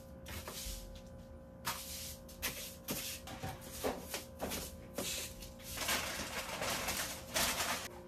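Broom sweeping a hard floor: irregular soft brushing strokes, denser in the last couple of seconds, with a few light knocks as household items are moved.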